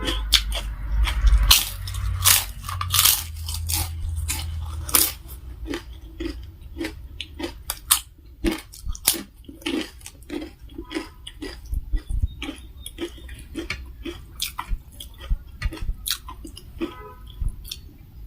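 Close-up mouth sounds of someone eating: crunching and chewing crisp food in a series of sharp crunches, loudest and densest over the first five seconds, then softer, sparser chewing.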